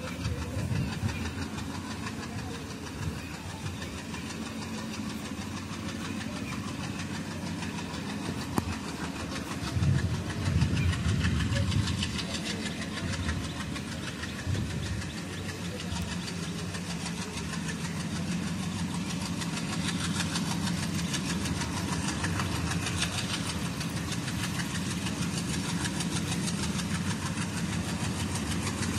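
Distant WDM3A ALCO diesel locomotive (16-cylinder ALCO 251 engine) running as it approaches, a low hum growing gradually louder. A brief low rumble swells about ten seconds in.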